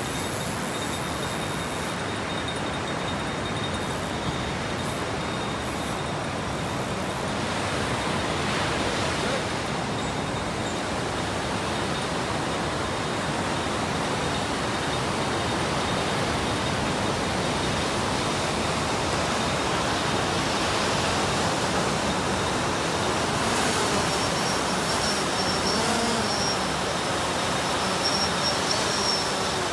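Steady wash of breaking surf. Near the end the faint high whine of a returning DJI Phantom quadcopter's propellers joins in.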